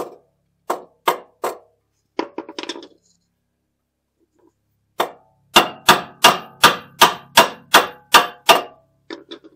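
Hammer tapping a new front control arm into place on a 2015 Jeep Cherokee: four or five blows, a pause of about two seconds, then a quick, even run of about ten blows, a little under three a second.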